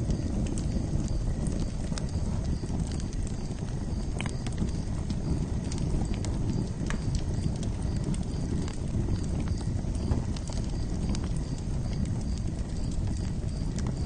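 Campfire burning: a steady low rumble of flames with irregular wood crackles and pops throughout. A faint high pulse repeats a few times a second in the background.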